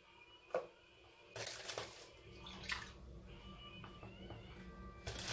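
Ladyfinger biscuits dipped into a pot of coffee and set down in a plastic dish: a light knock about half a second in, then a few short liquid splashes and drips, over faint background music.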